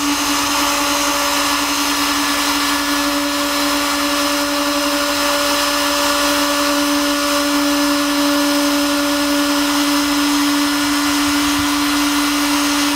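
A small electric motor-driven blower running steadily, with a constant hum and hiss.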